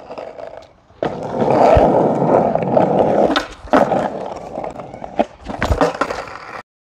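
Skateboard wheels rolling on rough asphalt, starting about a second in and fading after a few seconds. A few sharp clacks of the board against the pavement come in the second half. The sound cuts off suddenly near the end.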